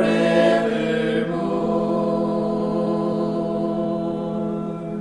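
A cappella choir of men's and women's voices holding a long chord, which shifts once about a second in and cuts off near the end.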